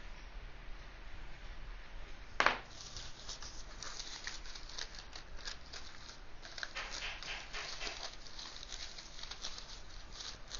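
Baking paper rustling and crinkling as it is cut and handled, with one sharp, louder crackle about two and a half seconds in, then a run of quick dry crackles.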